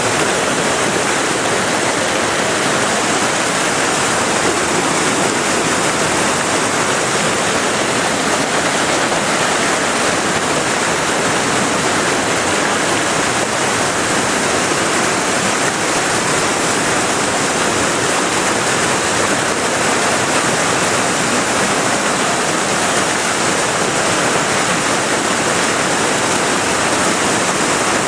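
Rushing white water, a loud steady hiss of flowing, churning water with no breaks.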